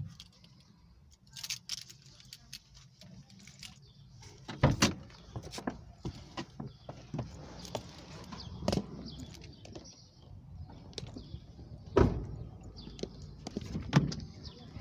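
Car door opening and shutting and the trunk lid being opened: a series of separate clunks and knocks, the loudest about twelve seconds in.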